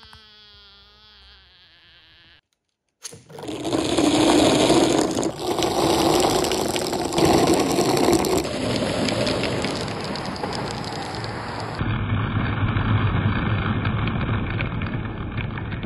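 Many glass marbles rolling and clattering together down a marble run, a loud dense rattle of clicks that starts about three seconds in and carries on to the end. Before it comes a short wavering, high-pitched call-like sound.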